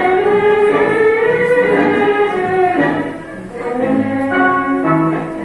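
Tango orchestra music with violins carrying a sustained melody. It dips briefly a little past three seconds in, then goes on with shorter, separate notes.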